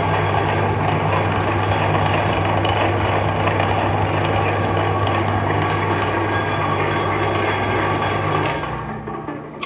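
Electric meat grinder motor running steadily with a constant hum, then switched off and running down, fading away over the last second or so.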